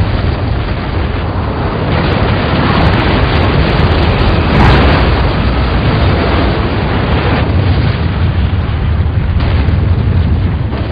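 Loud, continuous earthquake rumble and rattle, heaviest in the low end, swelling briefly about four and a half seconds in.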